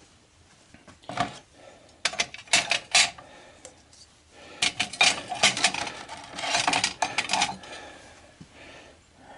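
Pieces of scrap brass from stripped faucets clinking and clattering against each other as they are handled and piled for weighing, in several short bursts of metal-on-metal clinks.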